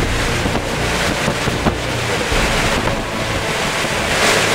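Hurricane-force Bora wind gusting hard and buffeting the microphone in a loud, rough roar that swells and eases, with a stronger gust about four seconds in.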